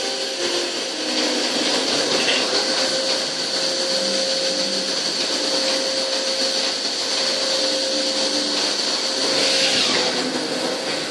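CNC lathe running with coolant spraying inside its enclosure: a steady hissing whir with a high whine over it. A lower hum runs along with it and drops out about ten seconds in.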